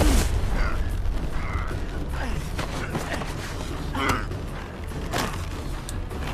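Film fight sound of two men grappling on the ground: short strained grunts, and leather jackets creaking and rustling as they twist and grip, over a steady low rumble.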